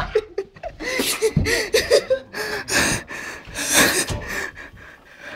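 Young people's voices: breathy gasps and bursts of laughter with short, unclear vocal sounds between them.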